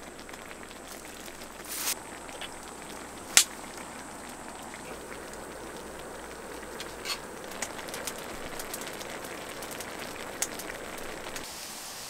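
Firewood burning in a wood stove: a steady hiss with scattered sharp crackles and pops, the loudest about three and a half seconds in.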